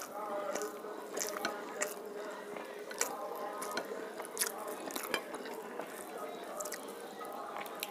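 Close-up eating sounds: wet chewing and lip-smacking, with many short sharp clicks, as rice and fried fish are eaten by hand. Fingers can be heard working the rice on the plate.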